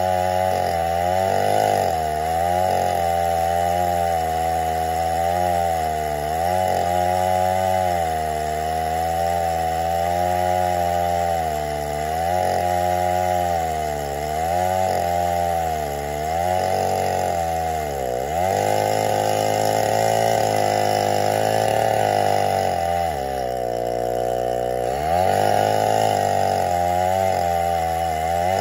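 Chainsaw in an Alaskan mill ripping lengthwise through an oak stump, running steadily under load. Its pitch wavers and sags as the chain bites, dropping most deeply around 18 seconds in and again between about 23 and 25 seconds.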